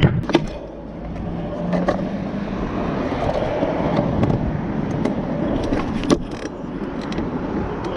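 Stunt scooter wheels rolling over concrete with a steady rumble, broken by a few sharp clacks of the deck and wheels hitting the ground: at the start, about two seconds in and about six seconds in.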